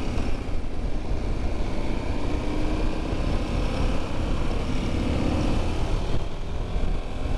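KTM 1290 Super Adventure S V-twin engine running under steady throttle as the motorcycle picks up speed, mixed with steady wind rush and a heavy low rumble.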